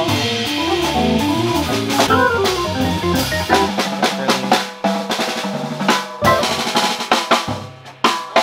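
Small jazz band playing live: a drum kit on snare and cymbals, with electric guitar and keyboard lines over it.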